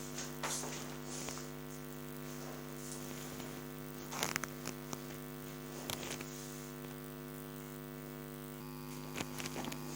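Steady electrical mains hum, a low buzz with several overtones, with a few faint clicks.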